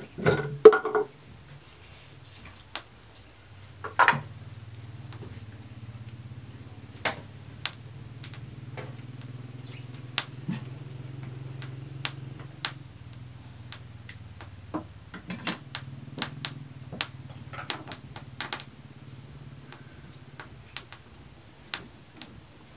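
Sticks of firewood knocking and clicking as they are pushed and arranged in a wood fire under a cooking pot: a loud clatter about a second in, then scattered sharp clicks. A low steady hum runs underneath from about four seconds in to about fifteen seconds.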